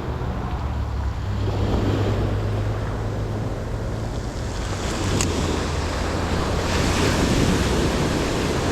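Surf washing on a beach, with wind rumbling on the microphone; a single sharp click about halfway through.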